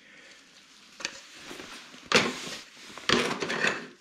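Handling noise: three short clattering, scraping bursts about a second apart, the last two loudest, as parts are moved about in a cardboard box.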